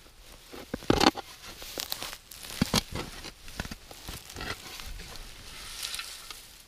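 Shovel digging into soil: irregular crunching scrapes with a few sharp knocks.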